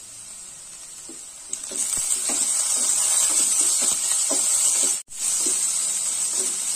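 Ginger-garlic paste and sliced onions frying in oil in a nonstick pan. A loud hissing sizzle starts about one and a half seconds in, with a wooden spatula stirring and scraping through it in short repeated strokes. The sound cuts out for an instant about five seconds in.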